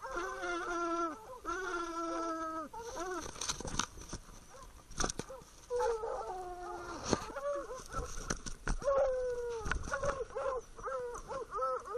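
Hunting hounds baying treed on a cougar: long drawn-out bawls in the first few seconds, then quicker, choppier barks. Sharp knocks and snaps of cedar branches against the collar camera come in between.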